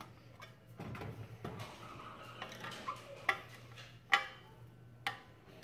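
Small screw turned by hand with an L-shaped key into the joint of two stainless steel column tubes: faint metal scraping and a few sharp metallic clicks, the loudest about three, four and five seconds in, over a low steady hum.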